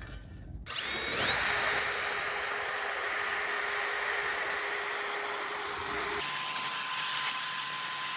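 Cordless drill fitted with a small wire wheel brush spinning up about a second in, then running steadily with a high whine as the wire bristles scour rust off a steel license plate bracket.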